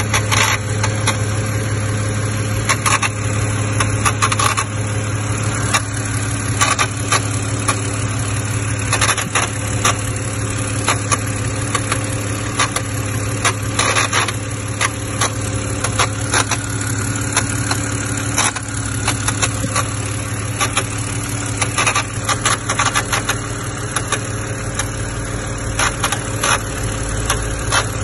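Car engine idling with a steady low hum and irregular clicks and ticks over it: an engine noise whose source has not yet been found.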